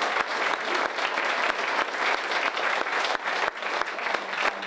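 Audience applauding: a dense, steady run of hand claps.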